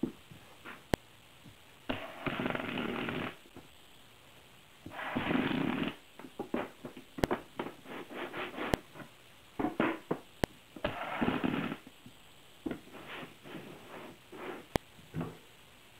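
Cordless drill/driver running in three short bursts of about a second each, driving screws through aluminum angle into oak, with light clicks and knocks of the metal strips and screws being handled between runs.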